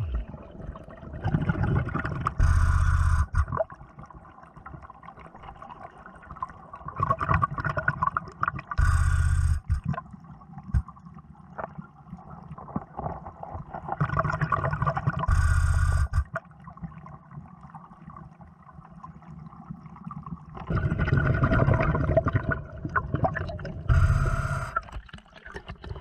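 Diver breathing underwater on a Nemo surface-air dive system: a loud gush of exhaled bubbles about every six seconds, with softer hissing and sloshing between, all muffled through the underwater camera housing.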